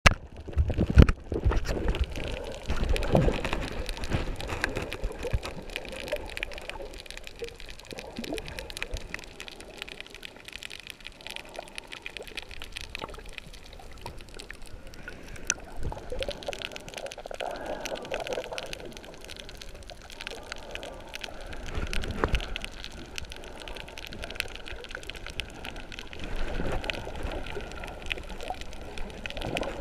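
Muffled water sloshing and gurgling around an underwater camera's housing as it moves through the sea at the surface, with scattered small knocks and several louder swells of rushing water.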